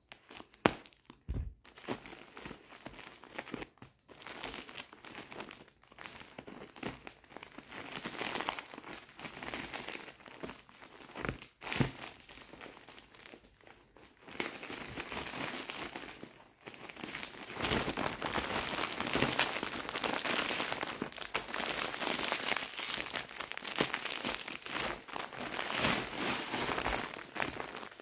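Crinkling and rustling of a woven plastic parcel sack being cut open and pulled apart, with a few sharp scissor snips near the start. About halfway through the crinkling grows louder and continuous as the plastic-wrapped clothing inside is handled.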